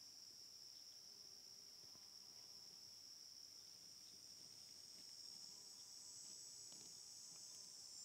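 Faint, steady high-pitched trilling of crickets. A second, higher-pitched trill joins in about five seconds in.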